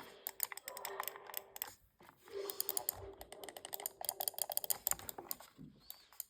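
Rapid, irregular clicking of a computer mouse's buttons, in two runs with a short pause near two seconds.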